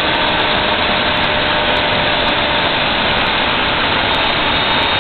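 Loud, steady machine noise, like an electric motor running, with a few faint steady tones.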